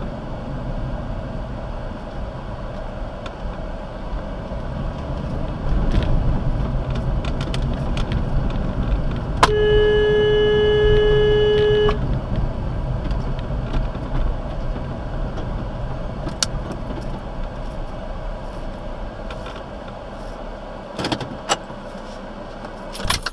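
Steady engine and road rumble heard from inside a slowly moving car. About ten seconds in, a car horn sounds in one long held blast of roughly two and a half seconds, the loudest sound here. A few sharp clicks come near the end.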